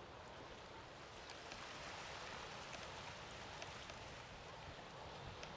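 Faint, steady hiss of wind and sea surf, swelling a little about two seconds in, with a few faint clicks.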